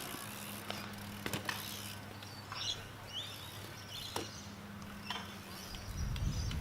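Birds chirping in short, scattered calls, with a couple of sharp clicks over a low steady hum.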